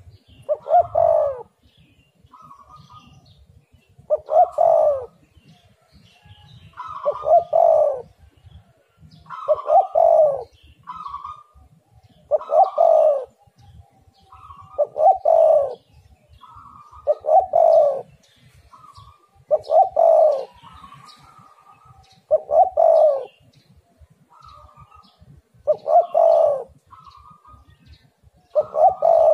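Spotted dove (tekukur) cooing its song phrase over and over, about eleven times, one phrase every two and a half seconds or so, with short, quieter notes in between.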